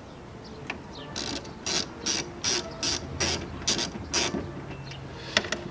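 Hand ratchet with a 10 mm socket clicking in short runs, about two or three strokes a second for some three seconds, as a bolt is worked loose.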